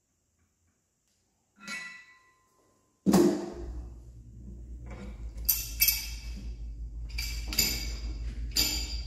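Wrench and steel parts clinking on a 3196 centrifugal pump as its impeller is tightened and the wrench taken off the shaft. There is one ringing clink about two seconds in. From about three seconds a run of sharp metallic clinks sounds over a steady low hum.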